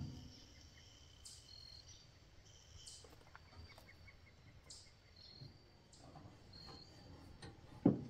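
Short high chirps repeat every second or two in the woods, with a single sharp knock near the end as the two-burner camp stove is handled.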